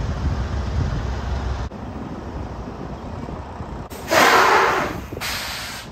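Semi truck's diesel engine rumbling low as it pulls up, cutting off a little under two seconds in; about four seconds in the air brakes let out a loud hiss of about a second, followed by a second, shorter hiss as the truck stops.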